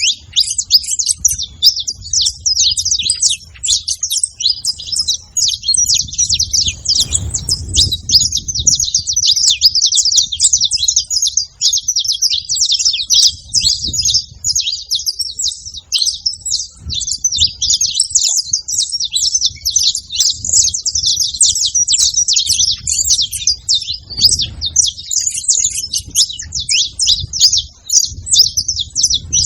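Saffron finches chirping and singing in a dense, unbroken run of rapid high notes and trills, with a brief low rumble about seven seconds in.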